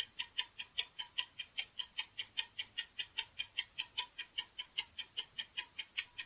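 Ticking clock sound effect used as a countdown timer during a quiz answer pause: a steady, fast tick about five times a second.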